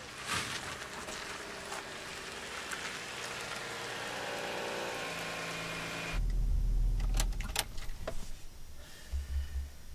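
A Subaru Outback wagon driving up and pulling into a driveway, its engine and tyre noise growing as it nears. About six seconds in, this gives way to a low rumble inside the car and a few sharp clicks and knocks.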